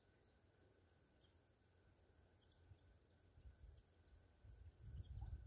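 Near silence: faint outdoor quiet with scattered distant bird chirps, and a low rumble building up near the end.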